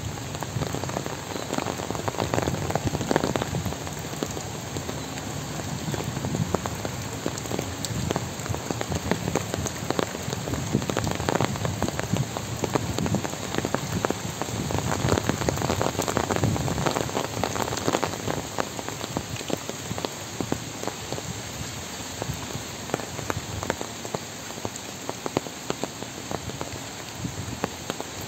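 Steady rain falling on a paved lane and trees: a continuous hiss full of the ticks of single drops.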